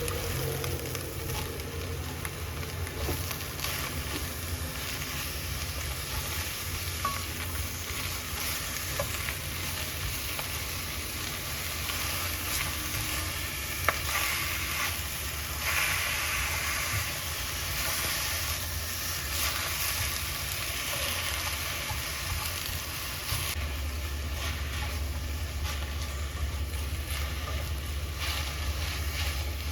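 Food sizzling in a frying pan while being stirred, over a steady low hum, with one sharp knock about fourteen seconds in.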